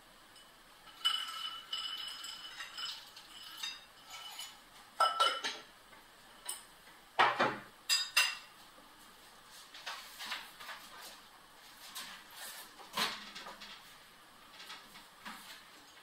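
A glass lid clinks onto a glass jar and rings briefly, then a metal spoon clinks and scrapes against a ceramic bowl in scattered strokes, the loudest about halfway through.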